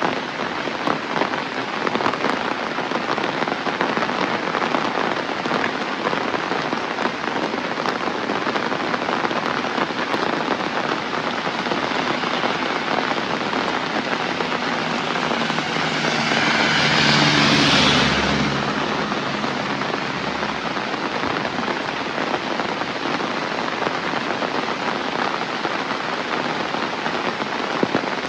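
Heavy rain falling steadily. About sixteen seconds in, a louder swell with a low hum rises and fades again within a few seconds.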